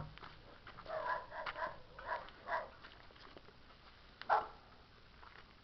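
A dog barking: a quick run of five or six short barks starting about a second in, then one louder bark a little after four seconds.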